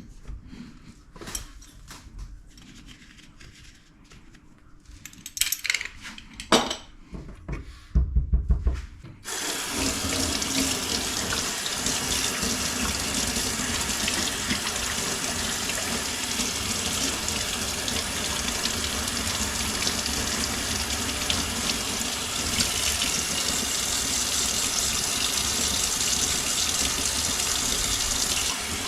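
A few knocks and clatters, then a kitchen tap is turned on about nine seconds in and runs steadily into a sink.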